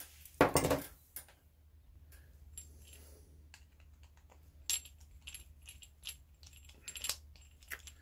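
Small metal clicks and clinks of brass gas fittings being handled and fitted together, with a louder clatter about half a second in.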